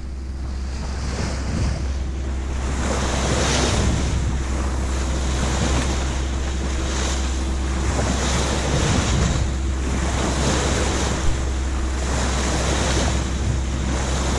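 Open sea rushing past a sailboat under way, the water noise swelling and easing every couple of seconds, with wind buffeting the microphone as a steady low rumble.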